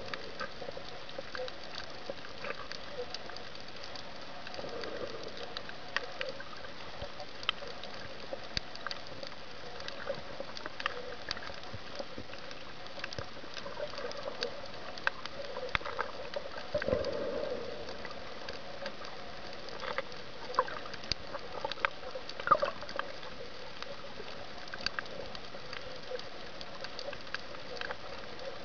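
Underwater ambience picked up by the camera: a steady hiss with many scattered sharp clicks and crackles, and a few short, muffled louder bursts, the strongest about two thirds of the way in.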